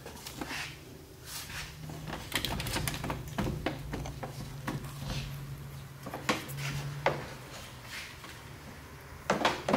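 Hands working on parts inside a trike's rear wheel well: a scatter of light clicks and knocks over a steady low hum, with a louder knock near the end.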